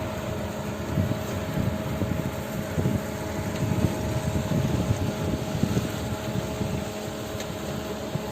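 Steady engine and road noise of a moving car heard from inside the cabin: a low, even rumble with a faint steady hum.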